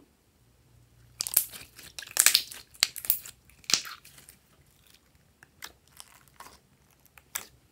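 Glossy slime squeezed and pressed by hand. It gives a dense run of sharp wet clicks and pops from about a second in to about four seconds, then a few scattered pops.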